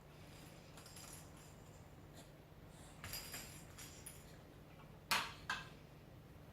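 Baby's toys jingling and clattering lightly, then two sharp knocks about half a second apart near the end.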